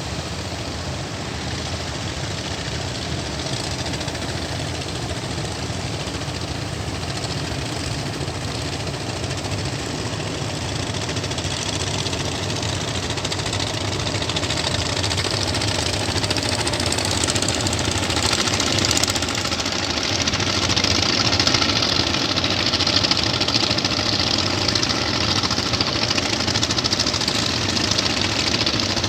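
A fishing boat's engine running steadily, growing louder and brighter from about halfway through.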